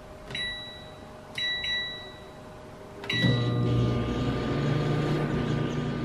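Samsung microwave oven keypad beeping as buttons are pressed, four short beeps with the last one longer. The oven then starts and runs with a steady low hum.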